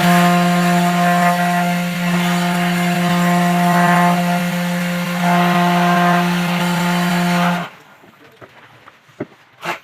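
A machine runs at a steady high speed with a strong, even buzzing hum, then cuts off sharply after about seven and a half seconds.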